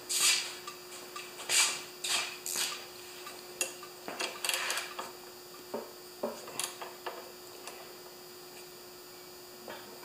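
Metal wrench clinking, rattling and scraping as it is fitted to a 10 mm nut at the carburetor bowl of a push mower's engine. The short clicks and scrapes come in an irregular run and thin out after about seven seconds.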